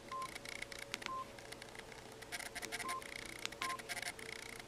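Samsung T404G cell phone's keypad tone: four short beeps at a single pitch, irregularly spaced, one for each key press while scrolling through the menu, with faint clicks of the keys and the phone being handled.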